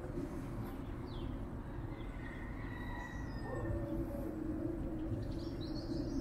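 Steady, low distant city rumble with a hum, like heavy traffic or rail, under a few faint high bird chirps.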